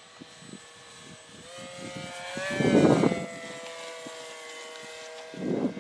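Electric radio-controlled Cub model airplane's brushless motor and propeller whining in a close low pass, rising a little in pitch and loudest about halfway through. The motor cuts out shortly before the end, and bursts of rough noise follow.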